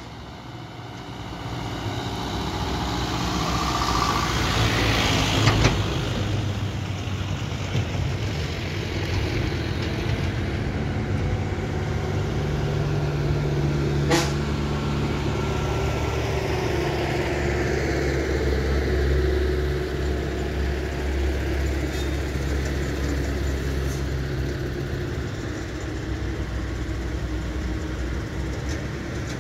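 Heavy lorry's diesel engine pulling uphill under load, a steady low drone that grows louder as the truck comes close and is strongest around the middle, then slowly fades. A short hiss swells a few seconds in, and a single sharp click comes about halfway through.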